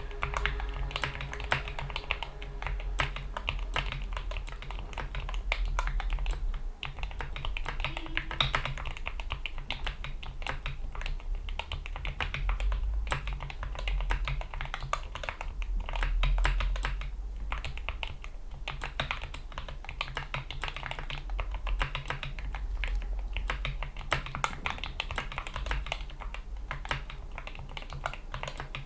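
Continuous fast typing on a GK61 mechanical keyboard with lubed Gateron Yellow optical switches, PBT keycaps and rubber O-ring dampeners: a dense stream of muted key clacks with no pauses of note.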